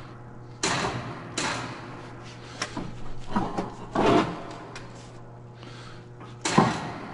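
Detroit Diesel Series 60 crankshaft knocking and clunking against the cast engine block as it is lowered on lifting straps and wiggled toward the main bearing saddles. There are about six sharp metal knocks with a short ring, the loudest near the end.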